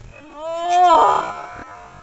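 A person's drawn-out wailing cry, held and rising slightly in pitch, then turning hoarse and loudest about a second in before trailing off.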